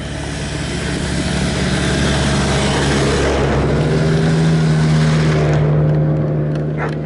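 An engine running steadily close by, with a loud rushing hiss over it that dies away about six seconds in.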